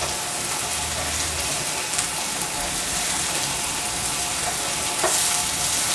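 Steak sizzling in a hot pan, a steady crackling hiss as its fat cap cooks down.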